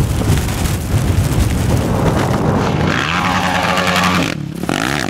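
Sport ATV engine running hard. About three seconds in, the engine note comes through clearly, breaks off briefly, then revs up and falls back near the end.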